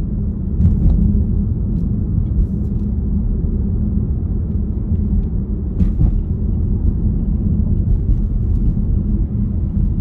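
Steady low rumble of a car's engine and tyres on the road, heard from inside the cabin while driving, with a couple of faint clicks about a second in and about six seconds in.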